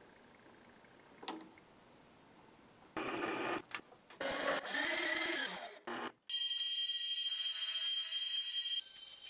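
A light clank, then some handling noises, then about six seconds in a milling machine's spindle starts and runs with a steady high-pitched mechanical whine, which steps up to a higher pitch near the end.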